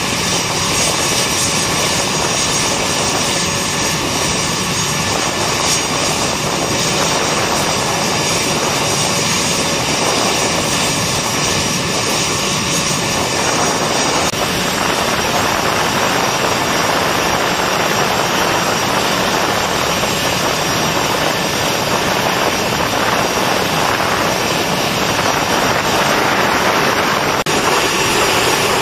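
Steady jet aircraft engine noise: a dense, even rush with a faint high whine over it, shifting slightly in tone about halfway through and again near the end.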